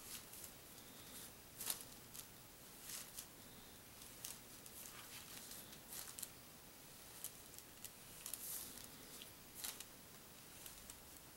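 Faint, irregular short scratches and rustles of a fine paintbrush stroking paint onto a paper hang tag held down by hand.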